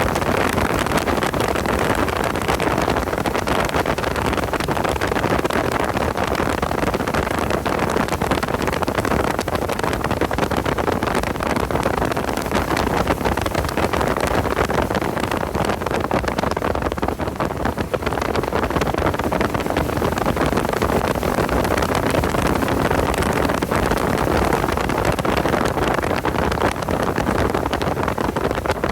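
Porsche 986 Boxster driven hard at speed: its flat-six engine running under a steady, dense rush of wind and road noise buffeting the microphone.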